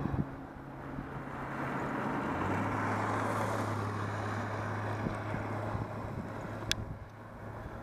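Wind rushing over the microphone on a road bike ride, with the steady hum and tyre noise of passing motor traffic swelling about three seconds in. A single sharp click comes near the end.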